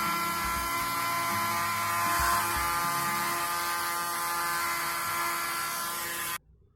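Small USB-powered laptop vacuum cleaner running as it sucks up dust particles: a steady high motor whine with airflow hiss and a few low knocks from handling. It stops abruptly near the end.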